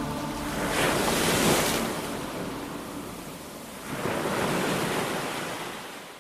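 Sea surf washing on a rocky shore: two waves swell in, about a second in and again about four seconds in, before the sound fades out at the end.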